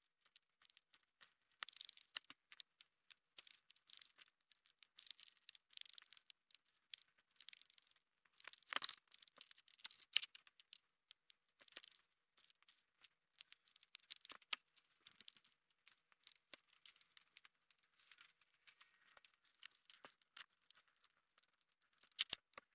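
Grey squirrel gnawing food and scrabbling right at the camera's microphone: a rapid, irregular run of crisp crunching and scratching clicks.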